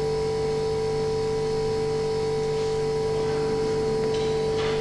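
A steady electrical-sounding hum with one strong mid-pitched tone and fainter tones above and below it, unchanging throughout.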